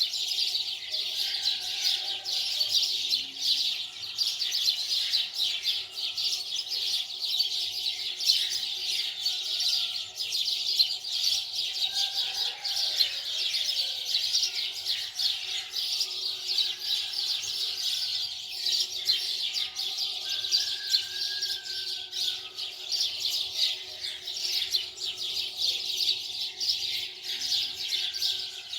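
A chorus of small birds chirping without pause: rapid, overlapping high chirps, with now and then a longer whistled note.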